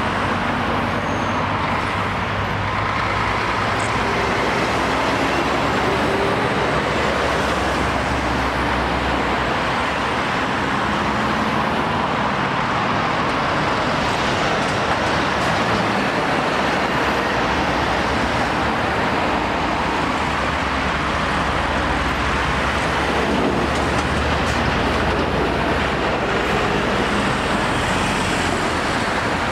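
Steady road traffic of lorries, vans and cars passing: diesel lorry engines and tyre noise.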